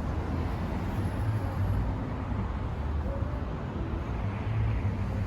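A car driving: steady low rumble of road and engine noise.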